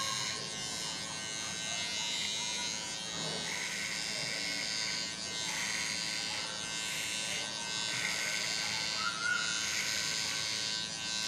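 Electric hair trimmer running with a steady buzz, its bare blade cutting short hair on the side of the head without a guard. The cutting noise swells roughly once a second as it is swept up through the hair.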